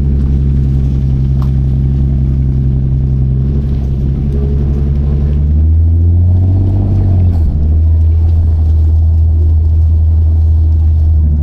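Car engine running steadily at low revs, with a brief rise and fall in engine pitch about six to seven seconds in before it settles back to a steady note.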